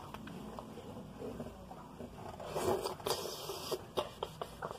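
Rustling and small clicks from handling close to the microphone, with a louder scraping rustle from about two and a half to three and a half seconds in.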